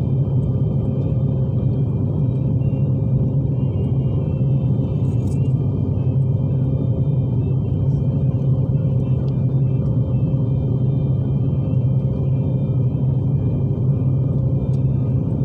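Airliner cabin noise in flight: a steady, unbroken low rumble of jet engines and airflow heard through the fuselage, with a steady hum over it, as the plane climbs out after takeoff.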